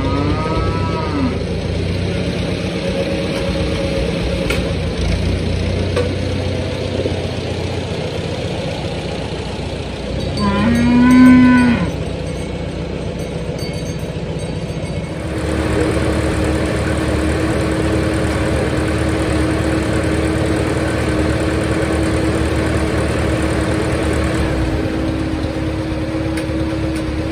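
Farmall tractor engine running steadily while a cow moos twice: a short rising moo at the start and a long, loud moo about eleven seconds in, the loudest sound. From about fifteen seconds in the engine sound gets louder and holds one steady tone.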